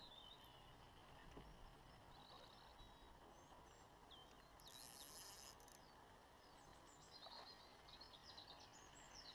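Near silence with faint birdsong: short, high chirps and trills come every second or two over a quiet background.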